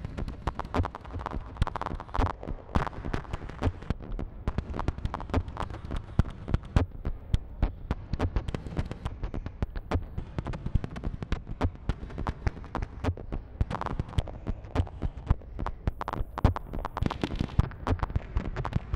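Live electronic music from a modular synthesizer: a dense, irregular stream of sharp clicks and crackles over a deep, throbbing bass pulse, with brief brighter swells about two seconds in and again near the end.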